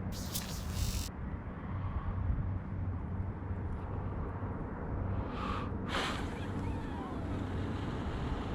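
Wind rumbling on the microphone of a kayak on open water, with a second-long hiss near the start and two brief hissing bursts about five to six seconds in.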